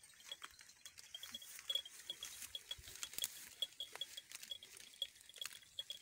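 Goats grazing: frequent irregular crisp clicks and rustles of grass being torn and chewed, with a high chirp repeating in the background.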